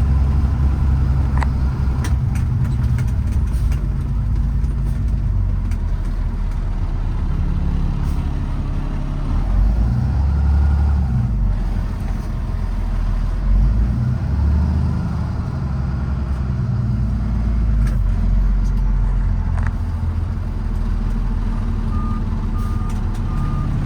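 Kenworth T370 truck's PACCAR PX-6 six-cylinder diesel engine running under way at low road speed, with road noise; the engine note shifts up and down a few times. A few short beeps near the end.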